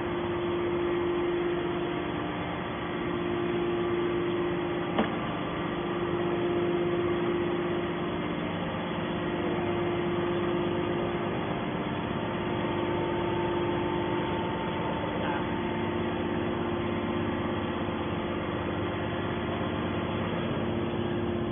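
Hydraulic power unit of a metal shavings baler running steadily with a constant hum and whine, with a single click about five seconds in.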